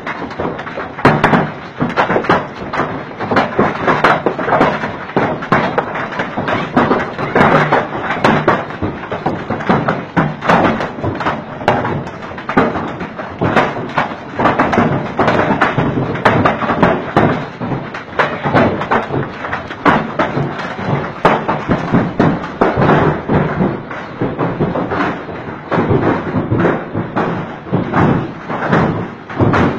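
Heavy hail falling, a dense, continuous clatter of hailstones striking.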